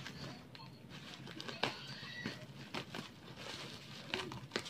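Plastic bubble wrap crinkling and crackling as it is handled and cut open with scissors, in scattered small clicks and rustles.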